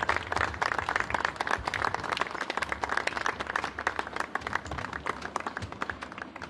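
A group of people applauding, dense hand clapping that dies down near the end.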